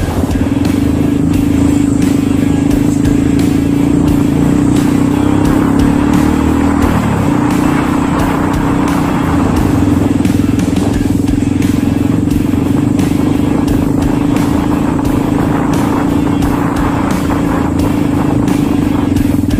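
Motorcycle engine running steadily under way, heard from on the bike, with a brief change in its tone about seven seconds in.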